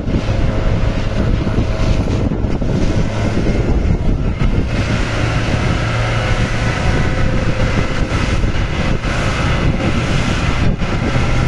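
Small boat's engine running steadily under way, a constant low hum, with wind buffeting the microphone.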